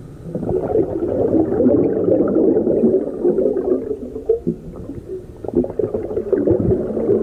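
Muffled underwater bubbling and gurgling of water, a dense crackle that eases off a little about halfway through.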